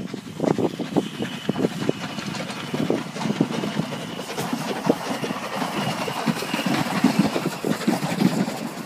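A 3 ft gauge steam train passing close by, the locomotive working and its coaches rolling along the rails, with a faint steady high tone through the middle. Irregular low buffeting from wind on the phone's microphone runs through it.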